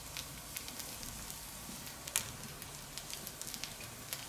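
Fire in the central fire bowl of a steel fire plate crackling, with irregular sharp pops over a soft steady hiss and one louder pop about two seconds in. Potato pieces sizzle faintly on the hot steel plate.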